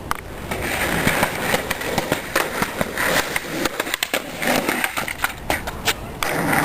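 Skateboard wheels rolling over pavement in a steady rough grind, with many short clicks and knocks as the wheels cross cracks and bumps.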